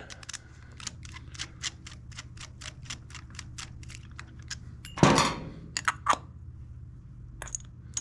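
Screwdriver turning the brass main jet back into a small-engine carburetor body, giving a quick, even run of light clicks, about five a second. About five seconds in a louder, short clatter, then a few scattered clicks.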